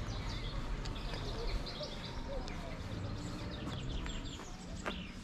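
Small birds chirping and singing: many short, quick overlapping calls over a steady outdoor background, with one sharp click near the end.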